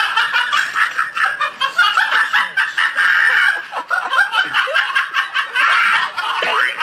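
High-pitched laughter, many quick laughs in a row without a break, cutting off suddenly at the end.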